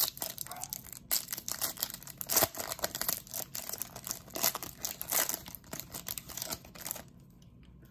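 Foil wrapper of a football trading card pack being torn open and crinkled by hand: a dense run of crackles and rips that dies down about seven seconds in.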